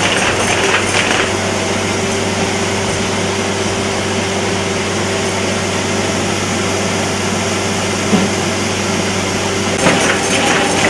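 Paper folding machine running with a steady hum and a steady mid-pitched tone.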